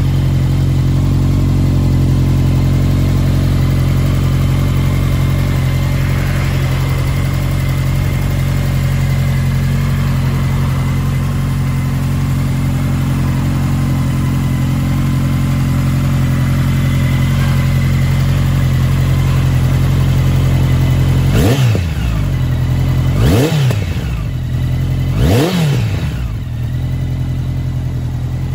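Honda CB1100RS's air-cooled inline-four idling steadily through a Moriwaki exhaust, then blipped three times in quick succession near the end, each rev rising and falling back to idle.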